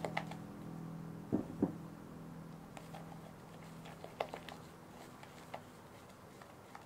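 A spatula scraping matcha batter out of a tilted glass mixing bowl into another glass bowl. There are two soft knocks about a second and a half in, then scattered light clicks of the spatula against the glass.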